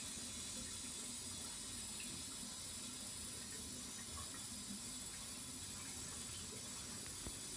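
Steady rush of water flowing into a hot-water boiler's piping as the system is filled and air is pushed out of the line.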